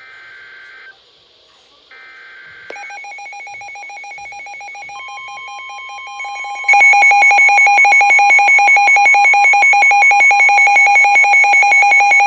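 Weather alert radio receiving a severe thunderstorm warning: two second-long screeching data bursts of the alert header, then the radio's electronic alarm starts about three seconds in, a rapid pulsing beep. A steady warning tone joins it about five seconds in, and the alarm gets much louder about seven seconds in.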